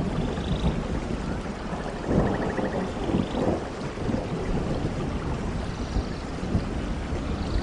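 Steady rain falling in a forest thunderstorm, with thunder rumbling low underneath and swelling about two seconds in.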